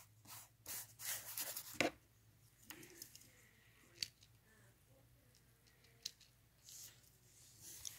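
Handwriting on lined notebook paper: a pen scratching and rubbing on the page, busiest in the first two seconds. A few short sharp clicks follow, spaced about two seconds apart.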